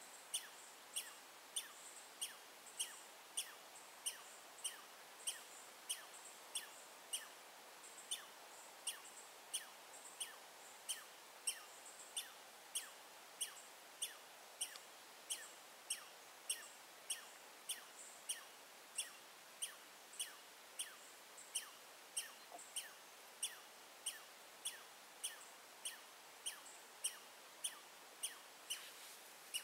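A short high chirp repeated at a steady, even pace of about one and a half times a second over a faint background hiss.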